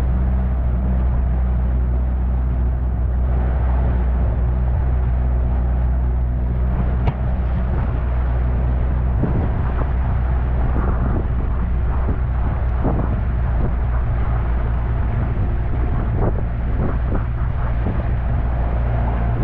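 Jon boat's outboard motor running at a steady speed, with irregular short knocks in the second half.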